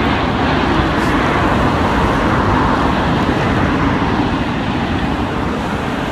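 Steady rushing outdoor noise of road traffic, with low wind rumble on a handheld phone's microphone.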